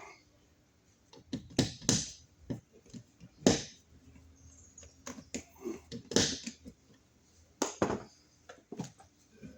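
Irregular clicks, taps and knocks of a metal box extension, outlet and screws being handled and pushed into a wall box, with a few louder knocks among lighter clicks.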